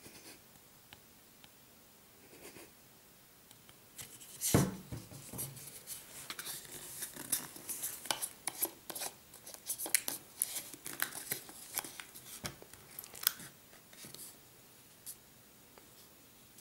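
A knock about four seconds in, then a run of rapid, irregular crisp clicks and scratches as a small plastic Nesquik squeeze bottle and its cap are handled. The clicking stops a couple of seconds before the end.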